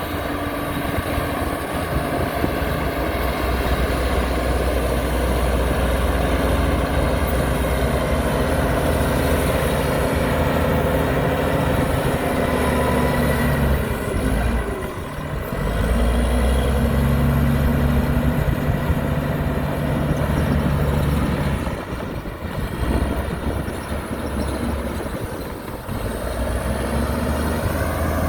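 Heavy diesel engine of earth-moving machinery running under load, its pitch rising and falling. The engine eases off briefly about halfway through and again about three-quarters of the way through.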